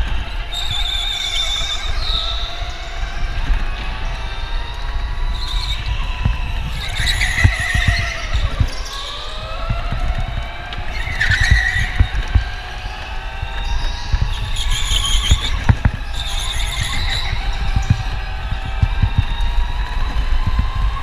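Electric go-kart's motor whining, its pitch rising and falling with speed, with the tyres squealing through corners several times. A low buffeting rumble with small knocks runs underneath.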